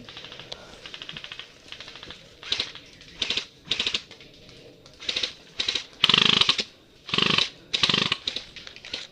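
Airsoft guns firing on full auto: a fast faint rattle at first, then a run of short bursts of rapid clicks, the loudest and longest about six seconds in.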